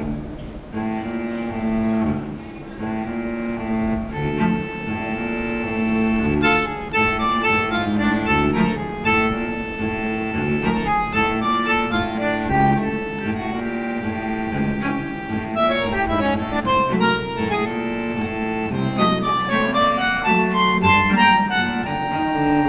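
Instrumental music: a melody of held notes over a steady low drone, starting abruptly about half a second in.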